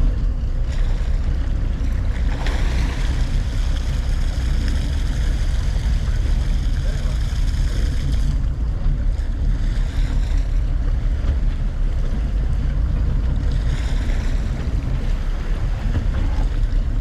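Boat engine running steadily under way, with water rushing along the hull and wind on the microphone. A higher rushing sound swells twice, from about two to eight seconds in and again near the end.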